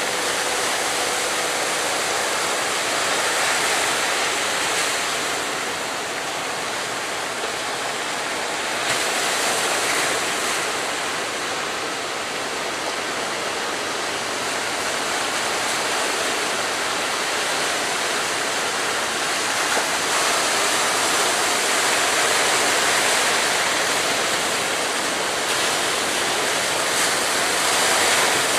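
Ocean surf breaking and churning at a river mouth: a steady rushing of waves that swells and eases every few seconds.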